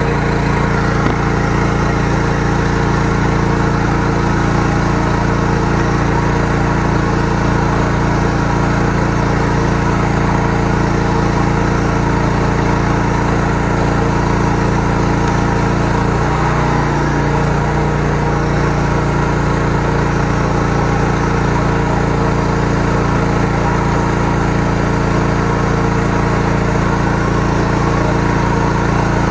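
The 13-horsepower engine of a high-pressure sewer jetter runs steadily, driving the pump during a nozzle test. There is a brief wobble in its pitch about halfway through.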